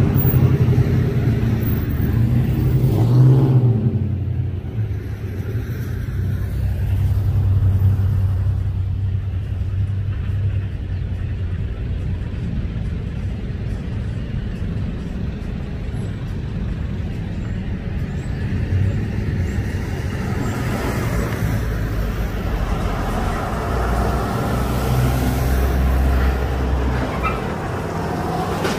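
Steady low rumble of a heavy engine-driven vehicle, with a deep hum that swells and eases a few times.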